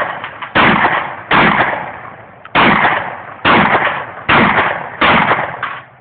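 Shotgun fired six times in quick succession, about one shot a second, each report echoing away before the next.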